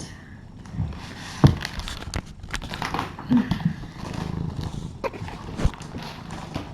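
Scattered knocks, clicks and rustling of small items being handled and packed into a suitcase.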